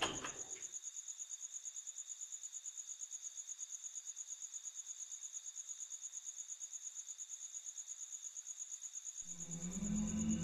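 Cricket chirping in a steady, rapid pulsing trill, about ten pulses a second. Music comes in near the end.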